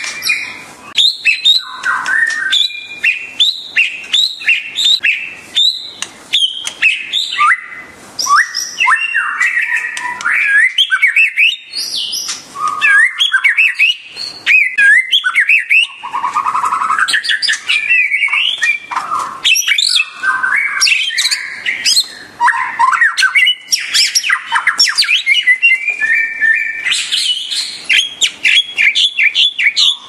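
White-rumped shama singing: a loud, continuous run of varied whistled notes and chirps in quick phrases, with pitch glides up and down and hardly a pause.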